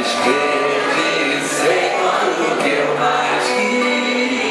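Live music: a man singing into a microphone over his own acoustic guitar.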